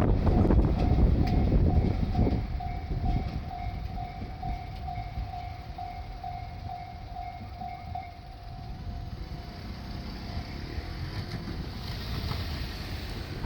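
Japanese level-crossing warning bell ringing at about two strikes a second as the rumble of a passing diesel train dies away over the first two seconds. The bell stops about eight seconds in, a faint tone lingering briefly after.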